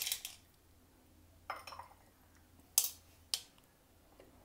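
Whole black peppercorns pattering from a small glass bowl into a stainless steel bowl of chicken, tailing off just after the start, then two sharp clicks about half a second apart.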